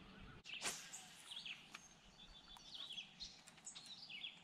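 Small birds chirping in short, quick-wiggling calls, faint, with one sharp click about half a second in.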